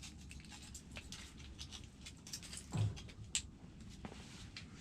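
Low, steady wind rumble on the microphone with many scattered light ticks and taps. About three seconds in, a brief low sound falling in pitch is the loudest thing.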